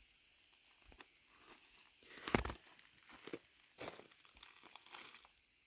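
Spruce grouse being pulled apart by standing on its wings and pulling up: faint tearing of skin and feathers, the loudest rip about two seconds in, followed by a few softer crunches and rustles.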